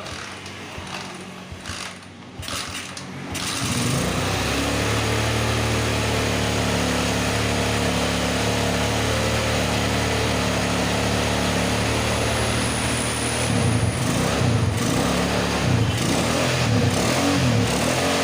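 A Honda GL Max's single-cylinder four-stroke motorcycle engine catches about three and a half seconds in and runs steadily. In the last few seconds its speed rises and falls unevenly.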